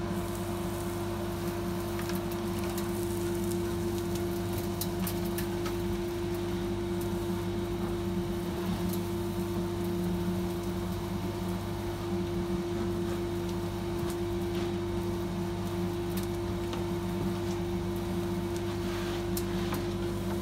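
Sawdust extractor running with a steady hum as its flexible suction hose is worked over a saw bench, with scattered light ticks of sawdust and chips being drawn into the hose.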